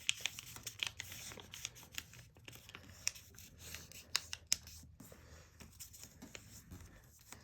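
Sheet of printer paper being folded by hand: faint, scattered crackling and rustling as a flap of the thick multi-layer origami model is pressed and squash-folded.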